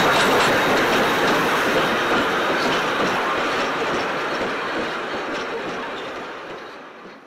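Steam train's tender and two wooden Glenelg Centenary passenger cars rolling past, steel wheels running on the rails with light clicks. The sound fades steadily as the train draws away.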